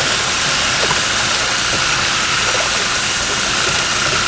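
A drill-driven paint/drywall mixer paddle running steadily in a tank of liquid fertilizer concentrate. A constant motor whine sits over the churning of the liquid as iron is mixed in.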